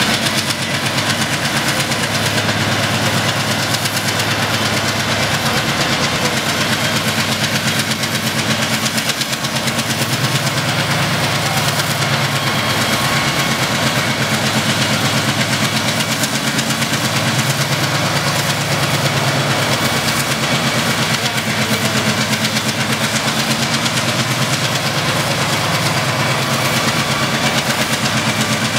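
Diesel engine of an MLW MX636 diesel-electric locomotive running steadily while stationary on test, with a low band that swells and eases a little every few seconds.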